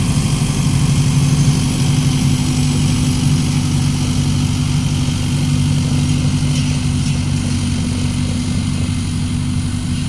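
Tractor diesel engine running steadily as the tractor drives past, pulling a field roller over tilled soil.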